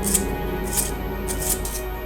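Background music: held tones under a crisp, high percussive beat that comes about every two-thirds of a second.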